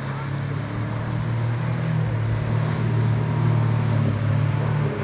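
Outboard motorboat at speed: a steady low engine drone with rushing wake water and wind. It grows louder as the boat passes close and falls away near the end.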